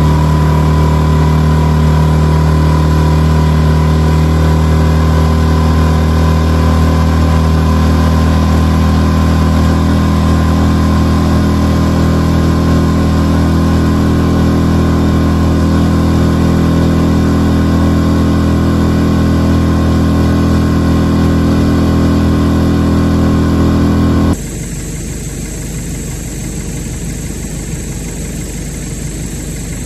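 Hangkai 6.5 hp four-stroke outboard running steadily under way, heard from aboard close to the motor. About 24 seconds in, it cuts abruptly to a much quieter, more distant engine sound.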